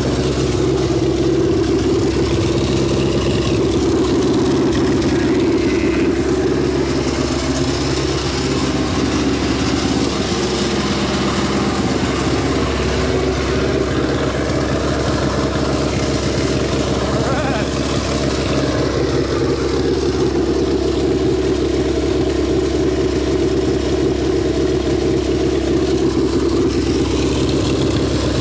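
A 3.0-litre four-cylinder marine inboard engine running steadily on a stand, with its starter motor still engaged. It runs well.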